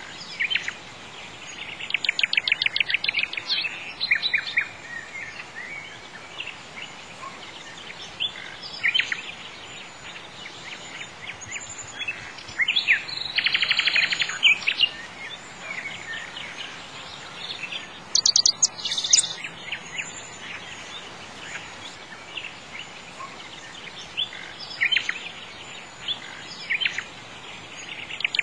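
Birds singing: bursts of fast, high chirping trills every few seconds, with quieter chirps between, over a faint steady hiss.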